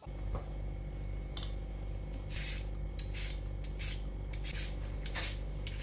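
Repeated short scraping strokes, roughly one a second, over a steady low hum.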